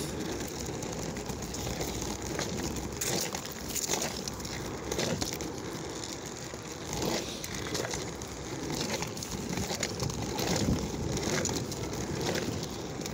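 Scooter rolling over pavement, with wind on the phone's microphone and the rustle of a nylon coat brushing the phone. A soft knock comes every second or so.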